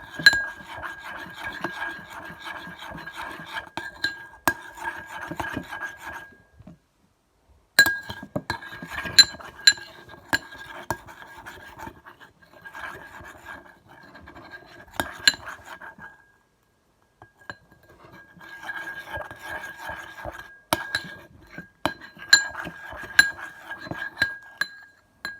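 A utensil stirring and scraping a thick mixture of shampoo and talcum powder in a container, with frequent sharp clinks against its side. The stirring goes in spells of several seconds, stopping briefly twice.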